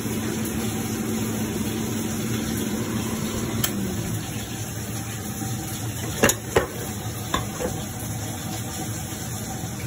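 Potatoes frying in hot oil with a steady sizzle, and a few sharp clicks and taps of a utensil against the pan, loudest about six seconds in. A steady hum underneath winds down and stops about four seconds in.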